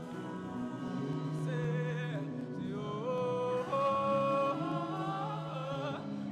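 A choir singing long held notes, several voices together, sliding up to a higher note about three seconds in.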